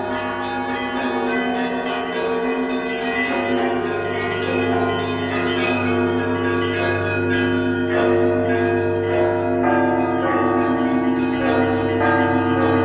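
Russian Orthodox church bells being rung: quick, overlapping strikes of smaller bells over the steady low ringing of a large bell.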